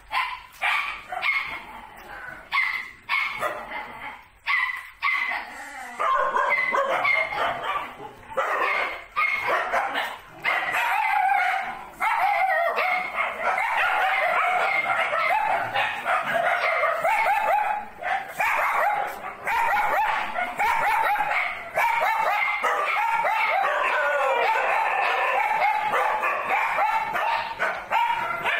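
A pack of kennelled dogs barking. At first there are separate barks a moment apart, then from about six seconds in many dogs bark over one another in a continuous chorus.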